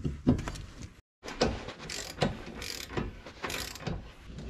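Hand ratchet wrench clicking through repeated strokes, about two a second, as brake caliper mounting bolts are run in. There is a brief break about a second in.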